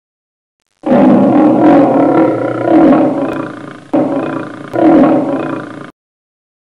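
Lion roar sound effect: one long roar, then a second shorter roar that swells again and cuts off abruptly.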